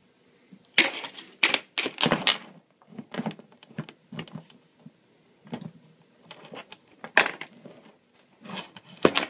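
Steel dog-proof raccoon trap, its chain and a pair of pliers clinking and clattering as the trap is gripped and moved about on a workbench. The clatter comes in irregular short bursts, the busiest about one to two seconds in, and again near the end.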